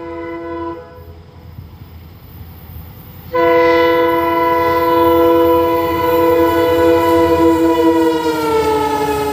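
Multi-note air horn of a diesel locomotive hauling an express train: a short blast, then from about three seconds in a long unbroken blast as the train approaches. Its pitch drops near the end as the locomotive goes by. The low rumble of the running train sits underneath.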